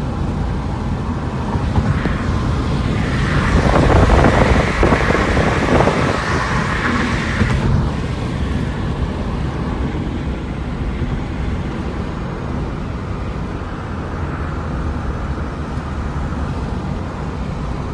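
Car driving on a highway, steady tyre and road noise heard from inside the cabin. The noise swells louder for a few seconds after the start, then settles back.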